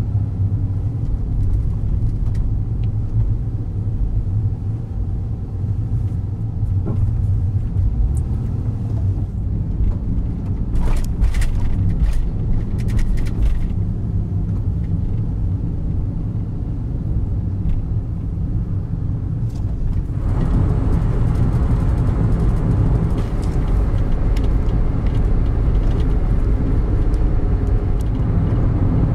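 Daihatsu Wake kei car driving, heard inside the cabin: a steady low rumble of its small three-cylinder engine and the road. There are a few brief clicks near the middle, and the noise steps up louder and rougher about two-thirds of the way in.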